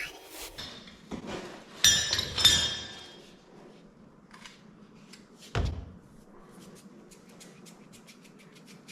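Hard tools and parts being handled during plumbing work: two loud ringing clinks, then a single dull thump, then faint rapid ticking.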